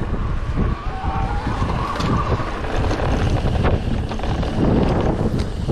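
Wind rushing over the microphone along with a rough low rumble from a mountain bike rolling over uneven ground. A faint whistling tone comes in for a second or so about a second in.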